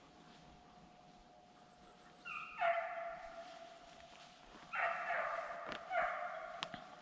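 Hunting hound baying on a trail: three long drawn-out bawls, each dropping in pitch as it opens, the last two close together. The dogs are trailing a deer's scent and have not jumped it yet.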